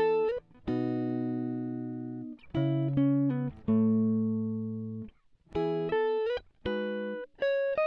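Background music: plucked guitar notes and chords, each struck cleanly and ringing out as it fades, one after another about every second.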